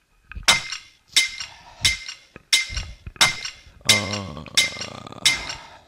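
Eight sharp, metallic clinks, evenly spaced about two-thirds of a second apart, each ringing briefly at the same pitch. A short, wavering pitched sound joins in about four seconds in.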